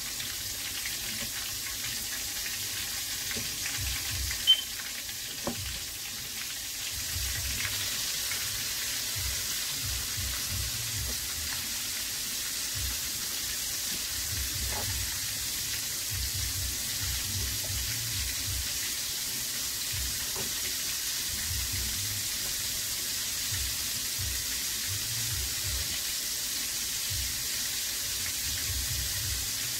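Hot cooking oil sizzling steadily in a large pot on the stove, a continuous high hiss. A single sharp click comes about four and a half seconds in.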